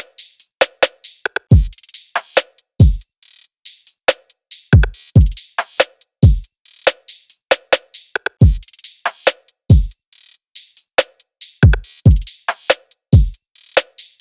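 Background music built on a drum-machine beat: deep kick drums that drop in pitch, with sharp hi-hat and snare-like hits between them.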